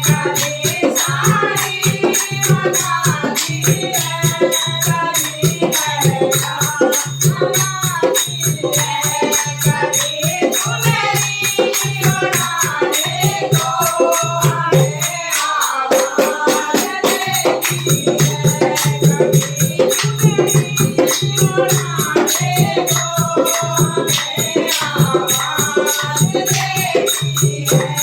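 Hindi devotional bhajan: a singing voice over music with a steady, fast rattling percussion beat. The bass drops out briefly about halfway through.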